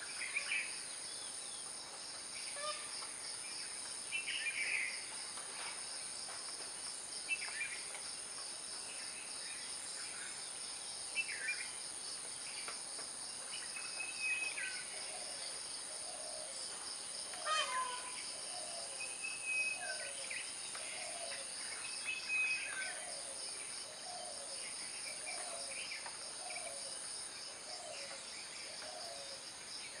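Natural garden ambience: a steady high insect drone with short bird calls every couple of seconds. From about halfway, a low short note repeats roughly once a second.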